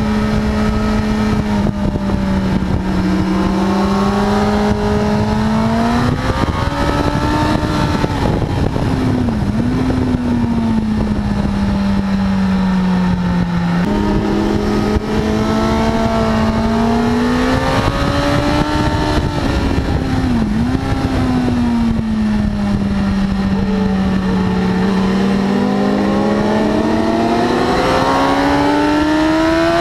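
Sport motorcycle engine running hard at track speed, heard from a camera mounted on the bike over a constant rush of noise. Its pitch glides up and down, dips sharply a few times and climbs steadily near the end.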